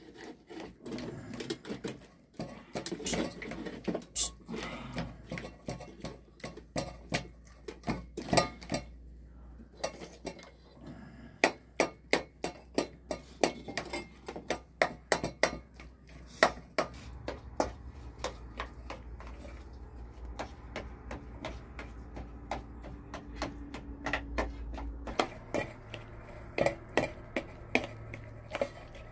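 Dishes and metal utensils being handled and set down, with irregular clinks and knocks, at times about two a second. A faint steady low hum runs underneath and stops near the end.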